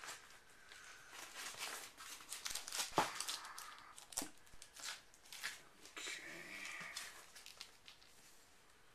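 Plastic comic-book bags crinkling and rustling as a stack of bagged comics is handled, with scattered small clicks and taps.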